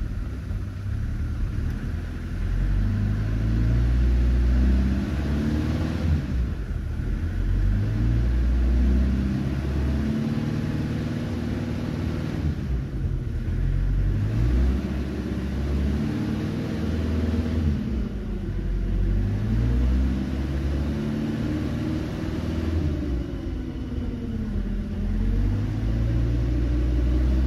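Ford Escort Mk4 Express van's 1.8 diesel engine heard from inside the cab while driving. The engine note rises as it pulls, then drops back at each gear change, several times over.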